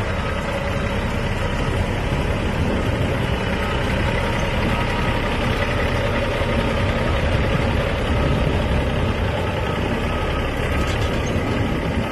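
Kenworth semi-tractor's diesel engine running steadily as the truck creeps forward and turns at walking pace.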